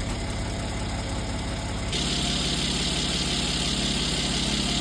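Mercedes-AMG C43's M276 twin-turbo V6 idling steadily, with no lifter tick to be heard after a hydraulic lifter additive and fresh oil, by the owner's account. A higher hiss joins about two seconds in and the sound grows a little louder.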